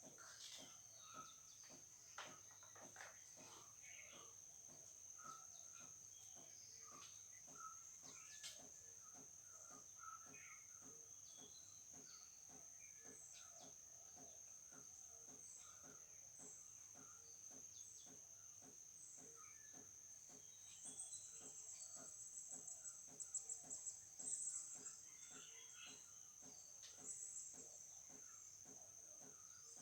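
Faint insect chorus, crickets or similar, holding a steady high-pitched drone, over a soft regular pulsing about twice a second and scattered faint chirps. A louder high trill rises for a few seconds about two-thirds of the way in.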